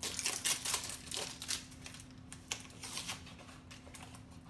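A Funko Mystery Minis blind box being opened by hand: packaging crinkling and crackling. The crinkling is busiest in the first second and a half, then thins to a few scattered clicks.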